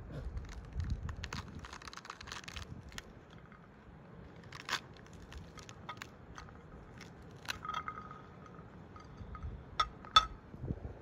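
A ripe pomegranate's rind cracking and tearing as it is pulled apart by hand, with crackling in the first seconds. Scattered sharp ticks follow as seeds drop onto a plastic plate, the loudest two near the end.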